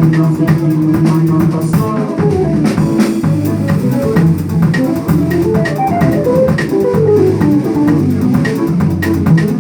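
Music: an instrumental piece with guitar, bass guitar and drum kit playing at a steady beat.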